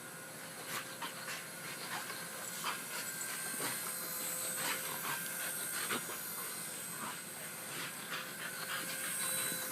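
Boxer dog panting hard in quick, repeated breaths, over the steady whine of a small remote-control helicopter's motor and rotor.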